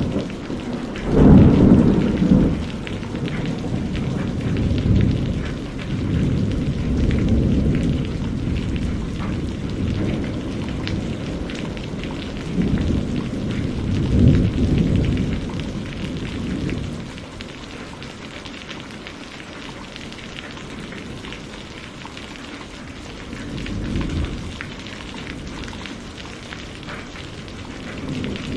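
Steady rain falling, with low rolls of thunder swelling and fading several times: the strongest about a second or two in and again around thirteen to fifteen seconds, then a quieter stretch of rain alone.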